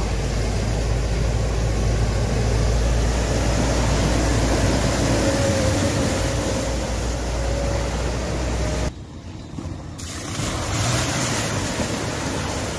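A tractor's engine running steadily as it drives through a flooded ford, its wheels churning up rushing, splashing water. About nine seconds in the sound cuts off abruptly, and a car's rush of spray through the water follows.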